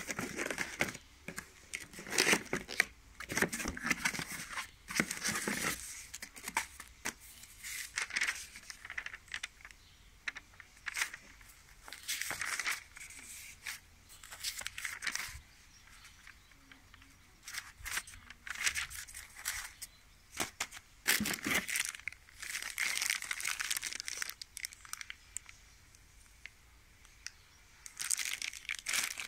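Packaging being handled during an unboxing: the cardboard box of an angle grinder, the pages of a paper manual and a plastic bag around a part rustling, crinkling and scraping in irregular bursts with sharp clicks.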